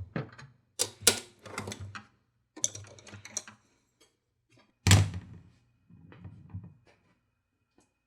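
Hard objects being handled, with irregular clicks, knocks and short clattering runs. The loudest knock comes about five seconds in.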